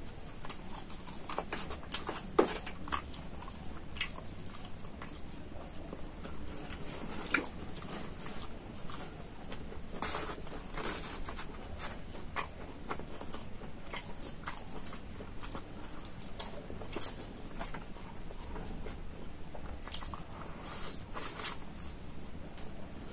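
Close-miked chewing of rice, chicken and crispy fried potato strips eaten by hand: irregular wet mouth clicks and small crunches, with a few sharper snaps.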